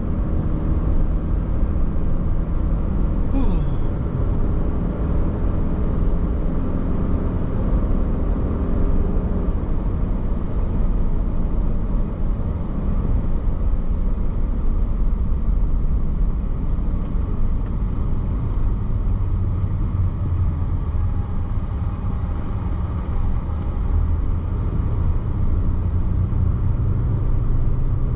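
Car driving along a road, heard from inside: a steady low rumble of engine and tyre noise, with a brief falling tone about three seconds in.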